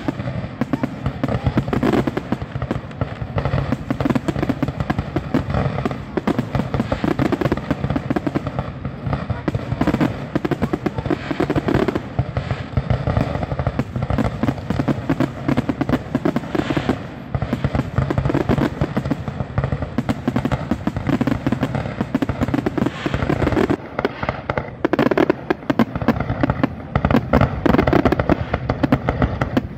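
Aerial fireworks shells launching and bursting in a rapid, unbroken barrage of many overlapping bangs, growing louder in the last few seconds.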